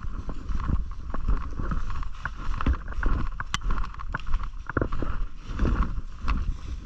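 Movement and handling noise on a body-worn camera's microphone: a steady low rumble with scattered knocks and clicks, and one sharp crack about three and a half seconds in.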